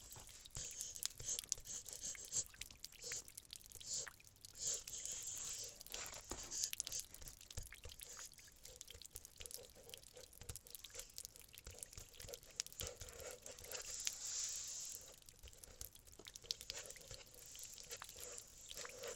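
Paintbrush scrubbing and dabbing acrylic paint onto a canvas: faint scratchy strokes that come and go, with small clicks.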